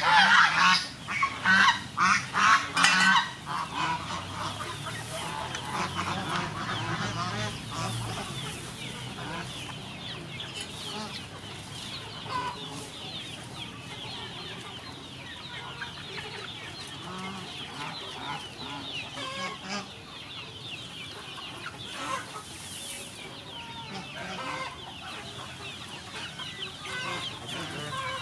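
Poultry calling. A run of loud, repeated honking calls fills the first few seconds, then a steady, fainter mix of chirping and clucking goes on.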